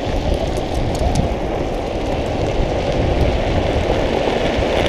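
Steady rushing noise of riding downhill on a drift trike: wind buffeting the camera microphone and the hard plastic rear wheels rolling on asphalt, with a few faint ticks.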